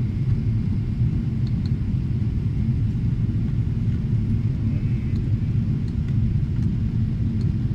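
Airliner cabin noise heard from a window seat: a steady, unchanging low rumble of engines and airflow.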